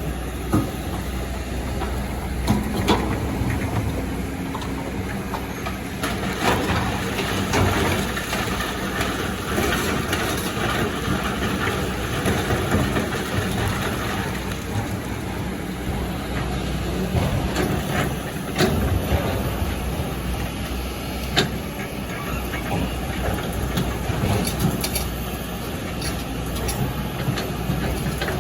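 Excavator's diesel engine running steadily at a mine face, with scattered sharp knocks and clatter at irregular intervals.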